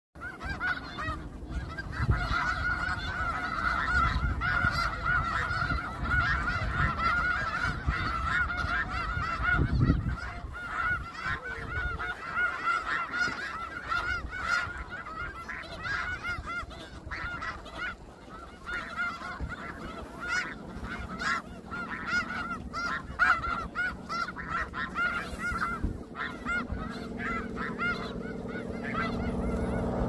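A large flock of snow geese calling all at once, a dense, continuous chorus of overlapping honks. A low rumble sits under the calls in the first third, and a steady low hum comes in about two-thirds of the way through.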